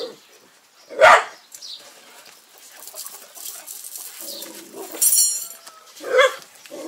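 A dog barking in single short barks, a loud one about a second in and another near the end, with fainter sounds between.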